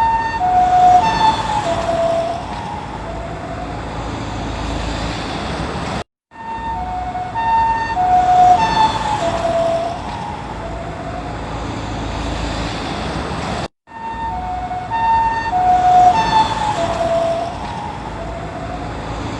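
Japanese ambulance two-tone "pee-poh" siren passing by, its alternating high and low tones dropping in pitch as it goes past (the Doppler effect), then fading into steady traffic noise. The same pass-by repeats three times, each restart after a brief cut to silence.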